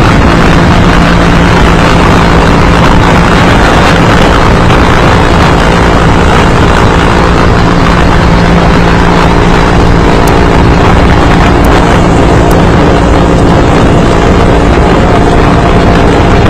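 Aircraft engine running steadily on board, a loud constant rush of engine and air noise with a few low steady hums underneath.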